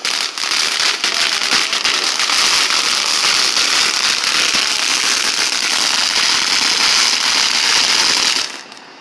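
Ground firework fountain spraying sparks: a loud, steady hiss thick with crackling that cuts off suddenly near the end.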